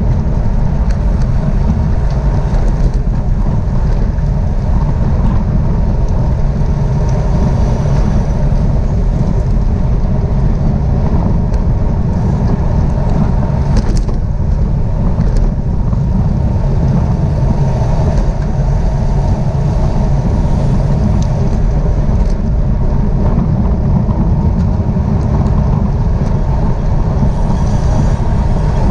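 Wind buffeting the microphone of a camera moving at speed: a steady, loud low rumble, with a few faint ticks.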